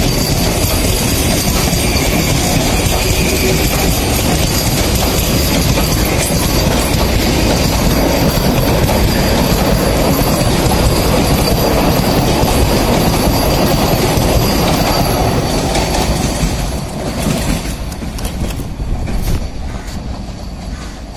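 Vande Bharat Express electric trainset passing at close range, its wheels and bogies rumbling loudly on the track with a thin steady high whine above the noise. The sound drops away from about three-quarters of the way through as the last coaches go by, with a few clacks over the rail.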